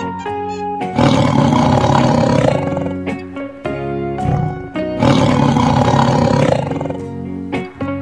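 A big cat roaring twice, each roar about a second and a half long, over background music.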